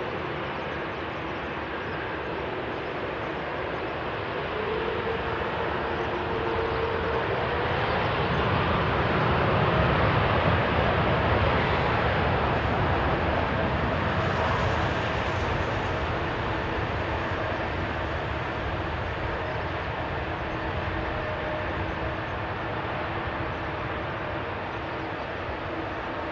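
Boeing 747-8 freighter's four GEnx turbofan jet engines running as the jet turns onto the runway and moves away. The steady jet noise swells to its loudest about ten seconds in, as the exhaust swings toward the listener, then slowly fades.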